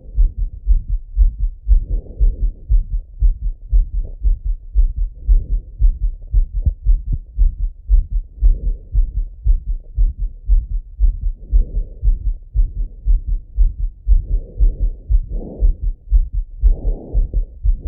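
Fast, regular lub-dub heartbeat heard through a Littmann stethoscope on a man's chest, recovering after running. Soft breathing rushes swell in now and then.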